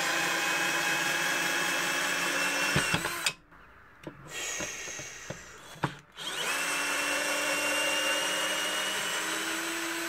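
Counterfeit Bosch GSR 18-2-LI Plus cordless drill/driver running in reverse, backing a long wood screw out of a timber block. The motor stops about three seconds in, gives a short burst with a few clicks, then runs steadily again from about six seconds, rising slightly in pitch near the end.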